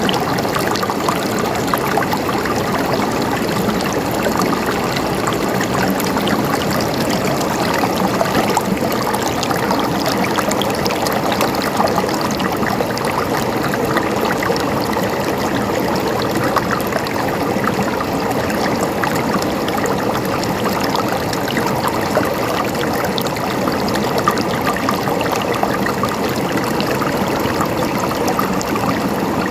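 Running water gurgling and trickling steadily, like a small stream flowing over stones.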